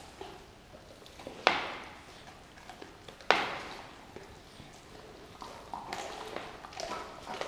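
Two dogs tugging at a whole raw turkey on a tile floor. The carcass hits the tiles with two sharp slaps about two seconds apart, then softer clicks and taps from the dogs' chewing and claws come near the end.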